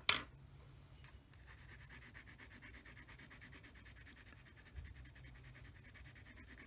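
Coloured pencil scratching on paper in quick back-and-forth strokes, a yellow pencil being layered over green to blend. The strokes are faint and even and set in about a second and a half in, after a single sharp tap at the very start.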